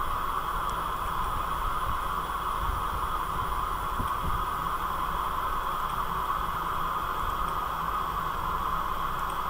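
Steady background hiss, even and unchanging, strongest in the upper-middle range, with a low rumble beneath it.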